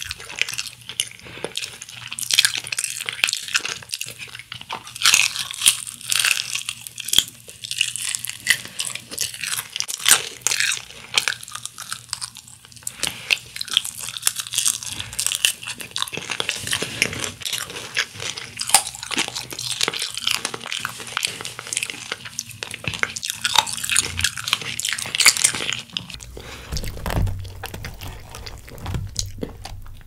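Chewing of crispy honey-glazed fried chicken (Kyochon Honey Combo): a dense run of crisp crunches and crackles as the fried coating is bitten and chewed.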